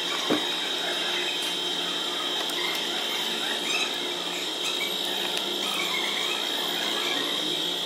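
Handling noise as the plastic air-intake duct is worked off a car engine's air filter housing: a single knock about a third of a second in and small scattered creaks and clicks. A steady high-pitched whine runs underneath.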